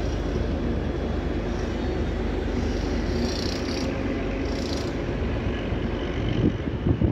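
Diesel railcar's engine rumbling steadily as it runs past, with a few heavy knocks near the end.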